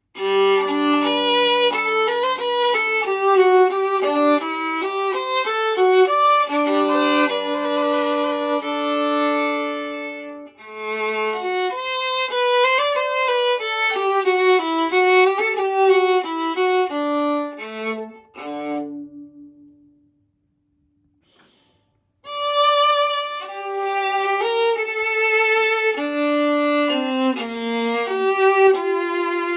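A vintage European Stradivarius-model 15.5-inch viola played with the bow, a melodic passage of sustained and moving notes reaching down to its low C string. The playing breaks off for about two seconds past the middle, then resumes.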